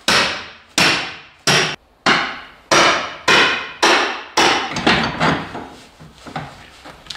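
A heavy hammer pounding the steel body of a Jaguar XJ6 banger race car shell, about a dozen hard blows a half-second or so apart, each ringing briefly. The blows get lighter in the last couple of seconds.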